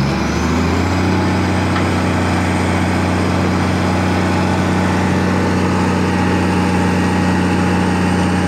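Heavy multi-axle truck's diesel engine running steadily at a constant speed, a loud, even low hum that settles in the first second and holds.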